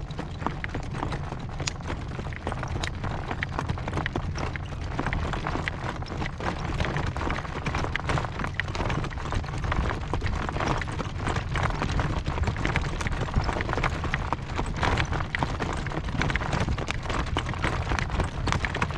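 Horse trotting, its hooves clip-clopping in a quick steady rhythm, with gusty wind rumbling on the microphone.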